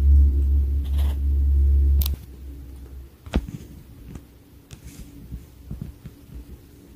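A loud, low steady hum that cuts off abruptly about two seconds in, followed by a few faint clicks and taps.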